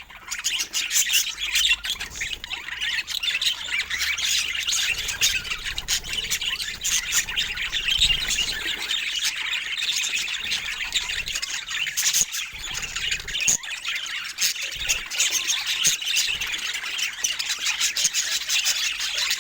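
Budgerigars chattering continuously: a dense stream of warbling, chirps and squawks, with frequent short sharp clicks mixed in.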